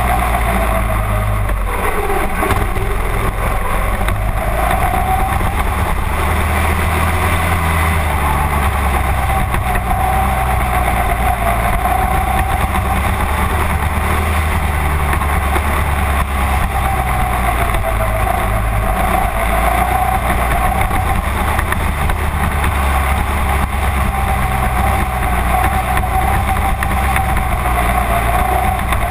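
Mini-dwarf race car engine running hard through hot laps, heard from inside the cockpit. Its pitch dips once about two seconds in, then rises and falls gently with the throttle through the turns, over a steady low rumble.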